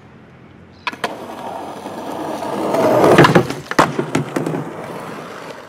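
Skateboard wheels rolling on a concrete sidewalk, growing louder as the board nears and then fading away. Two sharp clacks come about a second in, and a louder single clack of the board lands near the middle.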